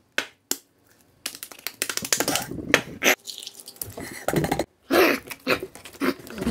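Two sharp clicks, then rough crunching and smashing as a man bites and tears into a gingerbread house, mixed with his grunts.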